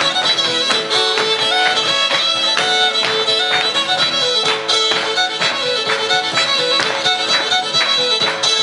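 Live fiddle-led Cajun dance music, the fiddle playing a lively tune over a steady beat of strokes.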